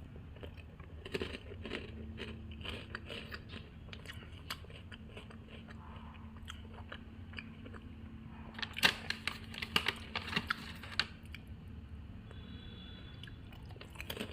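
Close-up chewing and crunching of a crunchy chocolate-coated breadcrumb snack cube, with a louder, quicker run of crunches about two-thirds of the way through, over a steady low hum.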